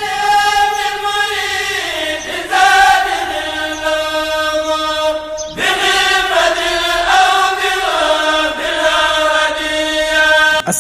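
Vocal chant sung in long, held notes that step from one pitch to another, with a short break about five and a half seconds in.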